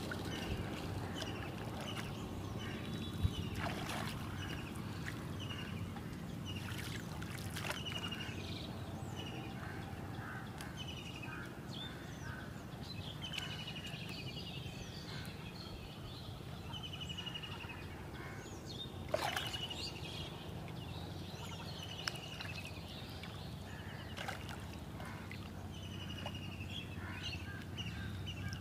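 Small birds chirping again and again over a steady low background rumble, with a few knocks and light splashes as a bamboo-and-net prawn trap is handled in the water.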